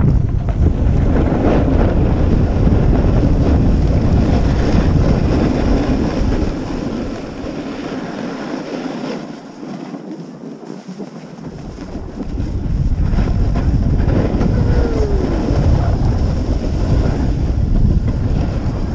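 Wind buffeting the microphone during a fast downhill ski run, mixed with skis scraping over packed, groomed snow. The rumble eases for about two seconds near the middle, then builds again.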